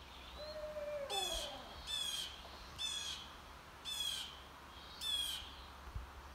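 A small bird giving a short rattling call about once a second, five times, the kind of scolding songbirds use when mobbing an owl. A lower sliding call is heard near the start.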